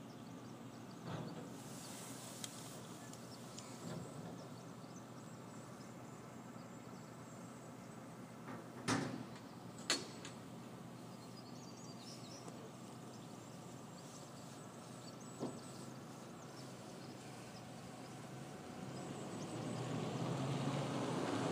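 Car cabin noise as the car rolls slowly, with a few short sharp knocks and clicks, the loudest two about a second apart midway. Road and engine noise grows louder near the end as the car picks up speed.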